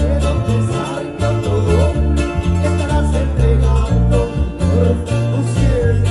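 Live amplified band playing a regional Mexican song: guitars carry the melody over a bass line that steps from note to note.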